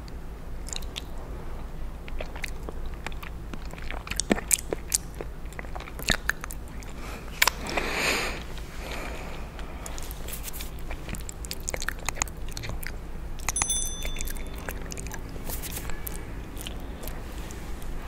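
Close-miked mouth sounds of eating tomato soup: wet clicks, lip smacks and chewing, with a longer slurp about eight seconds in. A short bright ringing clink comes a little before the end, over a steady low hum.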